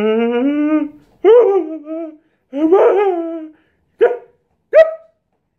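A man wailing in exaggerated mock sobs. A held cry runs out about a second in, then two longer wails with falling pitch follow, then two short yelps.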